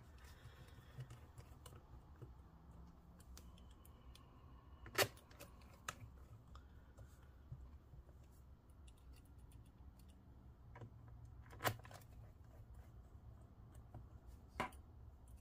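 Small screwdriver driving the last screws into a laptop's bottom cover: faint scattered ticks and light scraping, with three sharper clicks spread through it.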